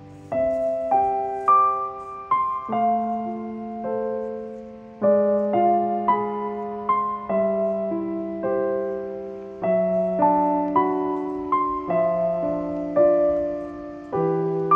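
Background piano music: a melody of struck notes and chords, each note fading away after it is played.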